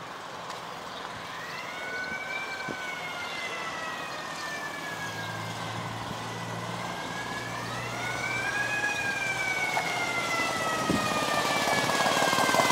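A siren wailing in two pitches together, rising and falling slowly twice and growing louder toward the end.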